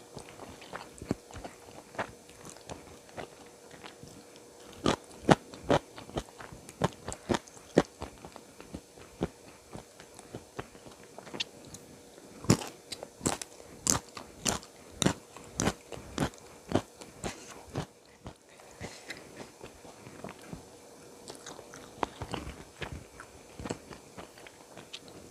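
Close-miked eating: sharp crunchy bites and chewing, in two dense runs of crunches with softer chewing between.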